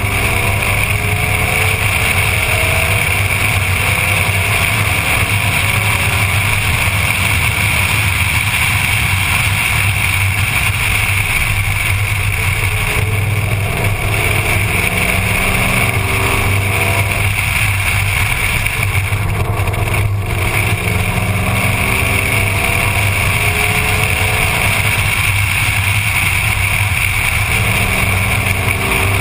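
Ford Mustang engine running hard at track speed, its pitch climbing several times as the car accelerates and then dropping back. Underneath is a steady rush of wind and road noise on the camera mounted outside the car.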